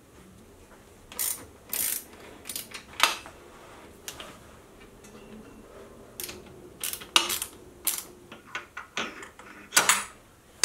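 Irregular metallic clicks, clanks and knocks from handling steel tooling on a milling machine table: a dividing head being clamped down with a wrench and tilted upright by hand, and a tool holder fitted into the spindle.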